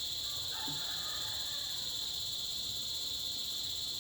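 Insects chirring in a steady, unbroken high-pitched drone.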